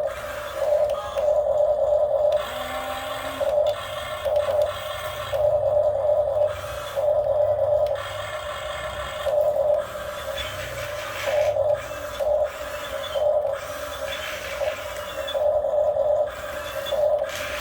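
Small electric motors of a radio-controlled excavator whining, swelling louder in short repeated bursts as the controls are worked.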